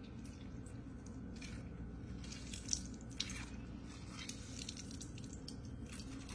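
Fresh limes squeezed by hand over a glass bowl: scattered soft squishes of the pulp and juice dripping into the bowl, over a steady low hum.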